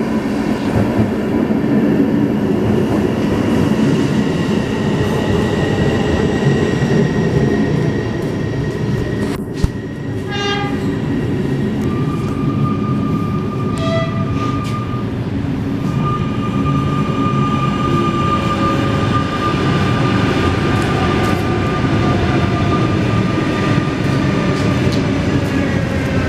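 Aeroexpress ESh2 (Stadler KISS) double-deck electric train arriving at a platform, rolling past and slowing to a stop. A click and a short tonal signal come about ten seconds in, and a steady high whine runs from about twelve seconds in.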